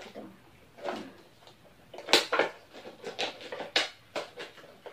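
Crinkling and crackling of the plastic shrink-wrap as it is picked at and peeled off an instant noodle cup by hand: a string of irregular crackles, loudest about two seconds in.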